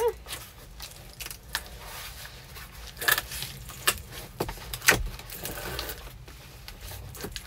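Packing noises: a shirt rustling as it is folded and a cardboard shipping box being handled and taped with a tape gun, with scattered clicks and two sharper knocks about three and five seconds in.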